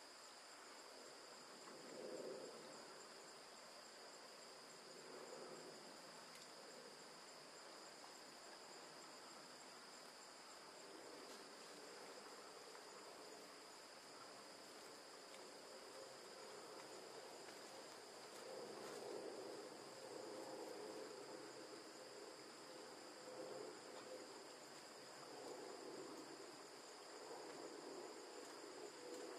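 Faint, steady high drone of insects in two constant high tones, with a fainter lower sound coming and going now and then.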